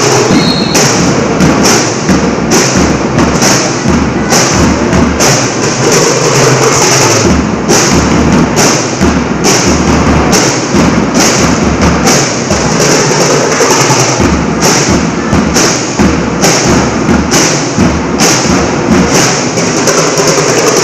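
Loud marching-band percussion: drums beating a steady marching rhythm with regular low bass-drum thumps and cymbal-like crashes on the beat.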